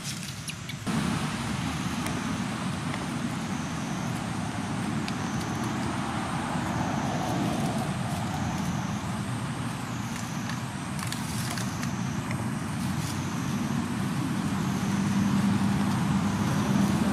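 Steady low rumble of distant motor traffic, with a faint high buzz that dips and returns about once a second; a low hum grows louder near the end.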